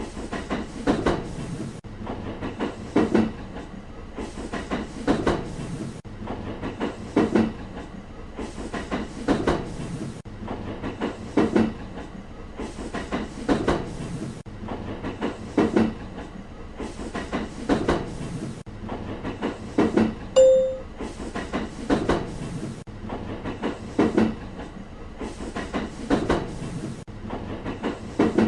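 A train running steadily over rail joints: a clickety-clack of paired knocks repeating about every two seconds over a steady rumble. A short beep sounds once about twenty seconds in.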